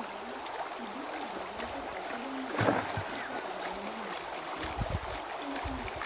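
Water sloshing as a plastic sieve pan of river gravel is swirled and shaken underwater in a shallow stream, over the steady sound of the running stream, with one louder splash about two and a half seconds in.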